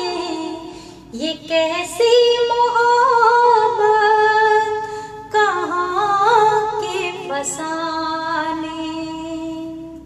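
A woman singing a Hindi-Urdu ghazal into a handheld karaoke microphone, in long held notes with a waver and ornamented slides. She pauses for breath about a second in and again about five seconds in, and the singing stops at the very end.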